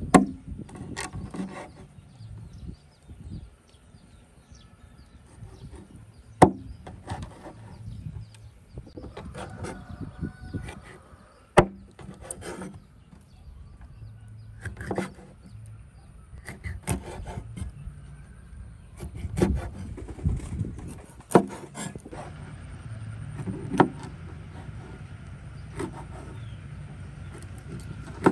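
Irregular knocks, scrapes and handling noises, with a few sharp clicks, the loudest about six and eleven seconds in.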